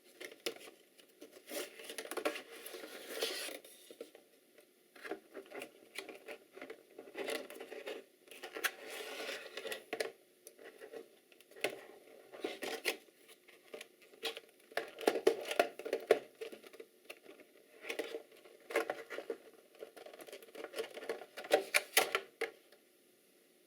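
Packaging and small parts being handled during an unboxing: irregular rustling and crinkling with many sharp clicks and taps, stopping shortly before the end.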